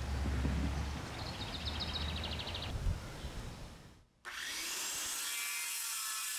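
About four seconds in, a circular saw starts and cuts through white PVC pipe: a loud, steady whine over the hiss of the blade in the plastic. Before it there is only an outdoor background with a low rumble and a brief run of fast ticking.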